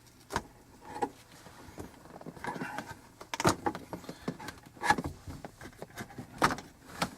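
Plastic interior trim around a Camaro's shifter being pried loose with a plastic pry bar: several sharp clicks and snaps at irregular intervals, with rustling and creaking between.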